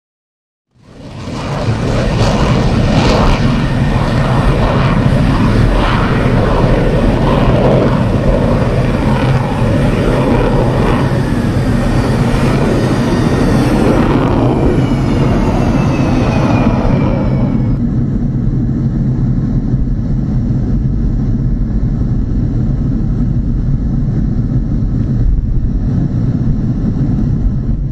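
MiG-29 fighter jet's twin jet engines, loud and steady. The sound starts about a second in. A high whine falls in pitch and drops away about two-thirds of the way through, leaving a low steady rumble.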